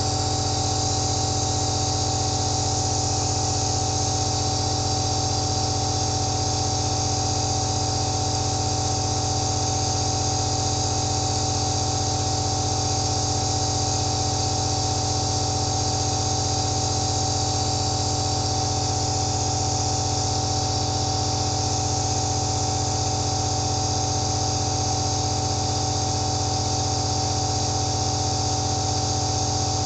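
Compressor nebulizer (home aerosol therapy unit) running steadily: a constant motor hum with a hiss of air and mist through the mask above it.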